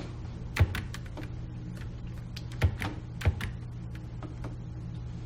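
Scattered clicks at a computer keyboard and mouse, three of them sharper than the rest, over a steady low hum.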